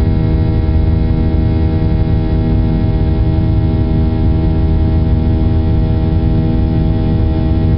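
Boeing 737-800 cabin noise in flight after takeoff: the CFM56-7B engines' loud, steady drone, a stack of steady tones over a low rumble, heard from inside the cabin.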